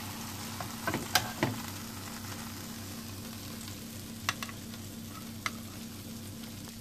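Oil sizzling steadily in a frying pan, with sharp clicks of metal spatulas against the pan and baking dish: a cluster about a second in and two more later, as a browned meat roll is lifted out.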